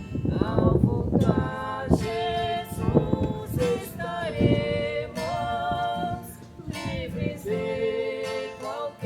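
A woman and a man singing a Congregação Cristã no Brasil hymn with acoustic guitar accompaniment, holding long notes that slide from one pitch to the next.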